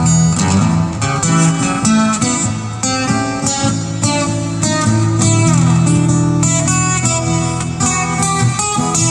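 Live acoustic band playing an instrumental break: two acoustic guitars strumming and picking, with a lead line that bends down in pitch about halfway through.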